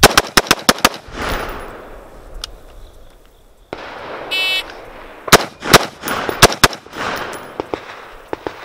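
AR-15 carbine firing a fast string of about six shots in under a second, echoing across the range. A short electronic beep comes about four and a half seconds in, then about five more shots at a slower pace.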